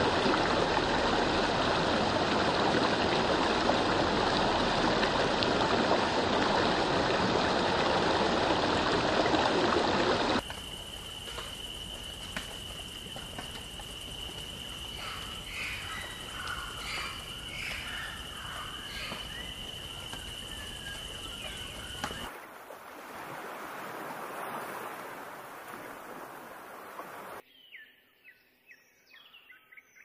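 Stream water rushing and trickling over rocks, loud and steady, cutting off about ten seconds in. Then a quieter forest background with a steady high whine and a run of short bird chirps in the middle, and near the end only faint, scattered bird chirps.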